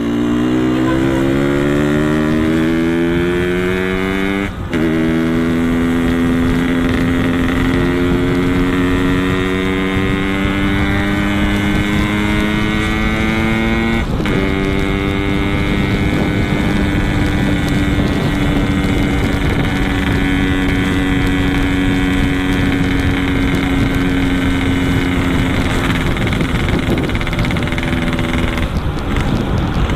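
Yamaha RX-King's two-stroke single-cylinder engine running through a Boban C33 aftermarket exhaust while the bike is ridden. The engine note climbs in pitch and breaks at a gear change about four and a half seconds in. It climbs again to another shift at about fourteen seconds, then holds a steady cruise until the throttle is closed near the end.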